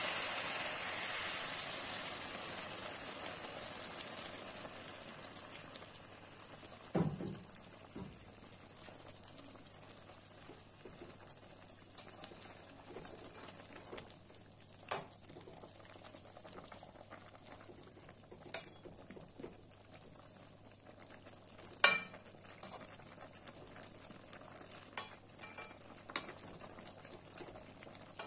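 Hot water hissing and sizzling as it meets the hot spiced potatoes and dried fish in a metal kadai, fading over the first few seconds into a quiet simmer. A slotted metal spatula clinks and scrapes against the pan several times while stirring, loudest a little past the middle.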